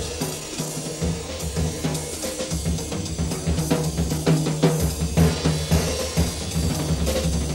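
Jazz drum kit playing a break, with snare and bass drum hits and cymbals over a low sustained bass line, the horns silent.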